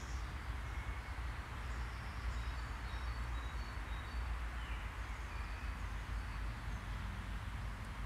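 Woodland ambience: faint bird calls as short high notes, several in quick succession around three to four seconds in, over a steady low rumble and hiss.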